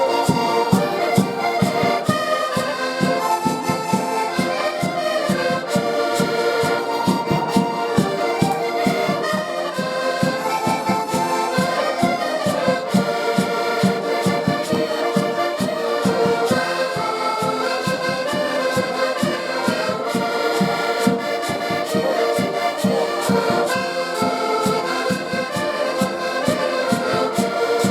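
Live Portuguese traditional folk music on accordions: a busy melody over a quick, steady bass-and-chord rhythm, playing without a break.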